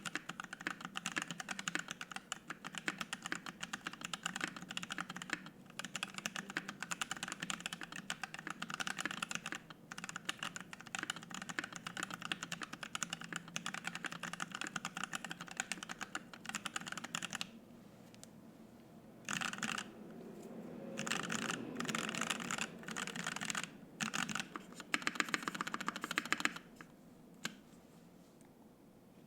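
Typing on a Savage65 mechanical keyboard with lubed and filmed T1 tactile switches, an FR-4 plate and PBT keycaps. It is fast, continuous typing for about seventeen seconds, then a pause and a few short bursts of keystrokes that stop shortly before the end.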